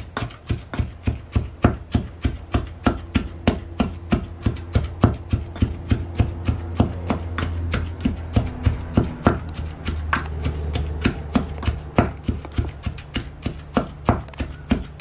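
Pestle pounding steadily in a small mortar, about four strikes a second, crushing garlic, green chillies and coconut into a paste.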